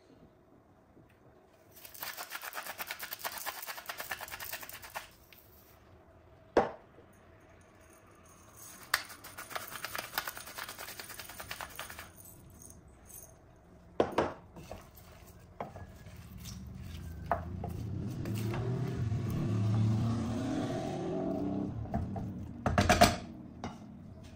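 A hand spice grinder twisted over a pot in two runs of rapid clicking. Chopped raw vegetables are then stirred in a stainless steel pot, a rising rustle and scrape, ending with a few loud knocks on the pot.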